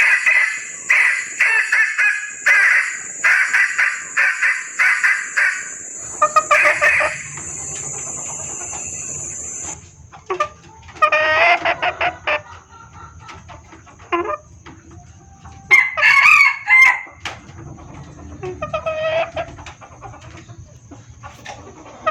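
Female junglefowl clucking calls, the lure call of a hen in breeding condition that draws males: a quick run of repeated calls for the first six seconds, then shorter call groups every couple of seconds. A steady high-pitched buzz in the background cuts off about ten seconds in.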